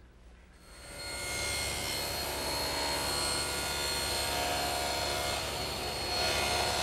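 Table saw motor starting up, spinning up over about a second, then running steadily with a constant whine.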